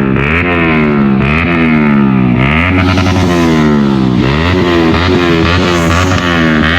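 Motorcycle engine revved hard again and again during a burnout: each rev jumps up quickly and falls away over about a second.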